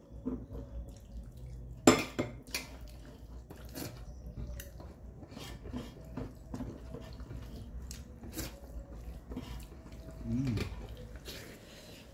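Hand-eating sounds: fingers mixing and scooping rice with dal on a metal plate, giving repeated small clicks, scrapes and wet squishes against the plate. A sharp clack about two seconds in, and a short hum near the end.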